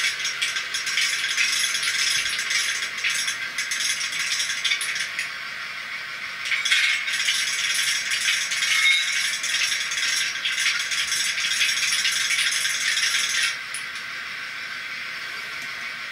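Sound decoder in a Piko model of a DR class 118 diesel locomotive, standing still and playing its diesel engine sound through its small speaker: a thin, steady rattling idle with no low end. It drops to a quieter level about thirteen and a half seconds in.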